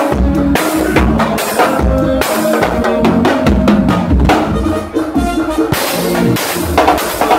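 Drum kit played live with a band: kick, snare and cymbal hits driving a fast groove over the band's music.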